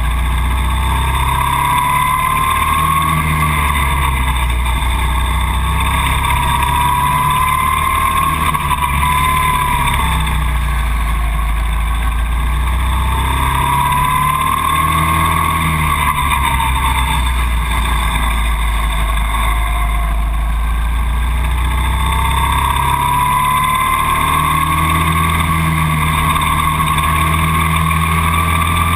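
Go-kart engine accelerating along the straights, its pitch climbing steadily over a few seconds and then dropping as the throttle comes off for the corners, several times over.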